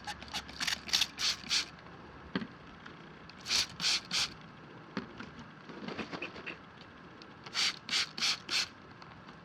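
Trigger spray bottle squirting soapy water onto a tire in three quick runs of short hisses: four, then three, then four. The soap solution is sprayed over the plugged puncture to check it for leaks.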